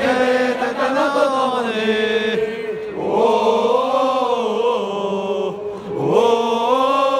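Football supporters chanting in unison, many voices holding long notes that slowly rise and fall, with a short break about six seconds in.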